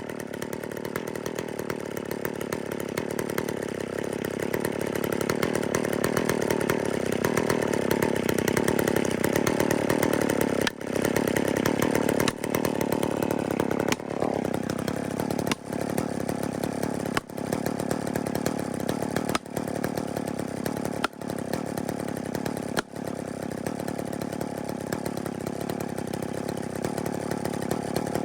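Chainsaw running under load, cutting into a rotten fir. Through the middle the engine sound drops briefly about eight times, roughly every second and a half to two seconds.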